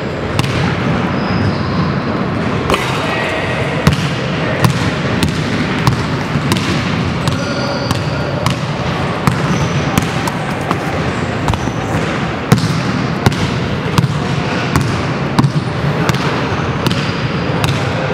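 Basketballs bouncing on a hardwood gym floor: irregular sharp thuds echoing in a large hall, with a few brief high sneaker squeaks over steady background noise.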